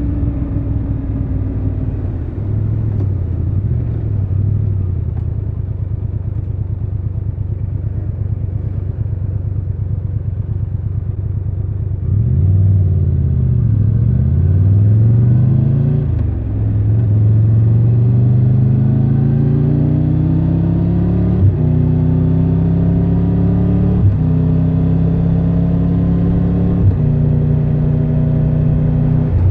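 Triumph Tiger 1200 Rally Pro's three-cylinder engine running at low revs, then revved up and down before pulling away. It rises through the gears, with three upshifts, each a short click and a drop in pitch.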